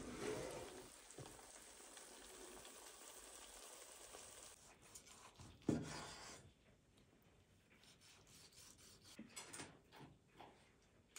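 Faint sizzling of bacon-wrapped eggplant rolls in a just-opened hot air fryer basket. About six seconds in, a kitchen knife cuts through a roll and strikes the wooden chopping board with one sharp knock. A few light taps follow near the end.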